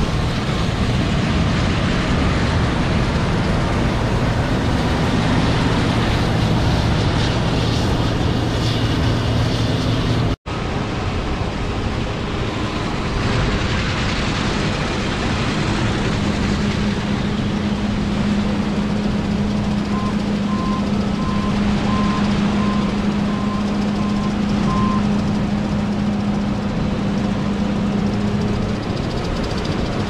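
John Deere STS combines running in a soybean field: steady engine and threshing noise. In the second half there is a steady engine hum, and from about 20 s a backup alarm beeps about eight times over five seconds as the combine reverses.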